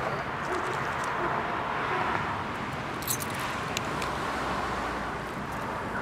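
Street traffic: cars driving past, a steady hiss of tyres and engines, with a few brief sharp ticks about three seconds in.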